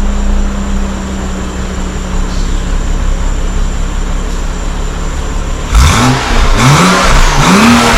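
BMW 535i's turbocharged 3.0-litre N55 inline-six, fitted with a catless downpipe, idling steadily, then revved in three quick blips from about six seconds in, the pitch climbing and dropping with each.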